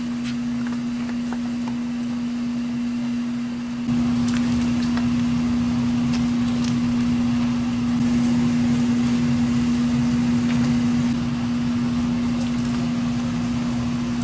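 A machine running with a steady low hum on one pitch, growing louder and fuller about four seconds in, with a few light clicks over it.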